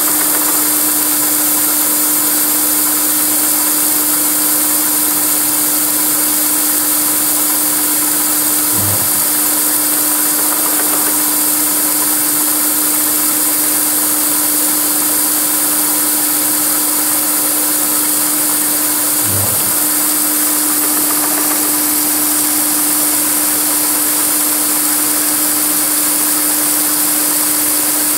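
MAHO MH700C CNC mill's spindle running steadily, its end mill cutting the tooth grooves of a Hirth coupling. About every ten seconds a brief low sound comes from the axis drives as the rotary axis steps to the next tooth, with a matching move in Y and Z.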